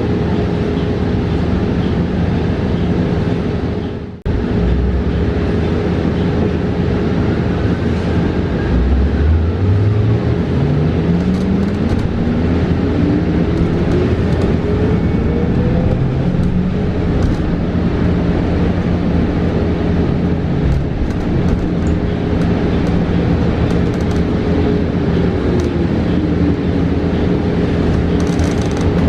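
Cabin sound of a 2022 New Flyer XE40 battery-electric bus in motion: steady road and cabin noise with a constant hum. The electric drive motor's whine climbs steadily in pitch as the bus accelerates from about a third of the way in. Near the end the whine dips and rises again as the bus slows and picks up speed; about four seconds in the sound cuts out for a moment.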